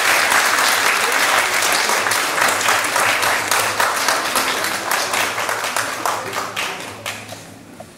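Audience applauding. The dense clapping thins to scattered claps and dies away near the end.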